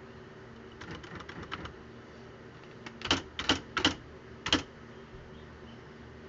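Smith Corona Display Dictionary electric typewriter (model NA3HH) typing: a quick run of light clicks about a second in, then four loud, sharp print strokes, over a steady hum.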